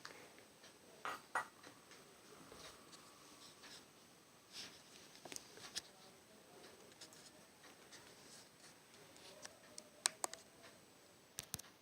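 Faint scattered clicks and soft rustles, with sharper clicks about a second in and again near the end.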